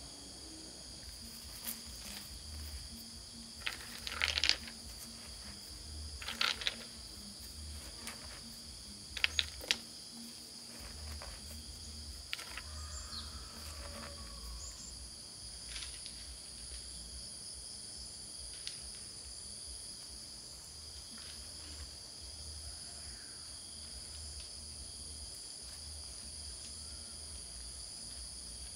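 Steady high chorus of crickets and other insects, with a few sharp clicks and clinks in the first ten seconds as pebbles knock together and are set into wet cement.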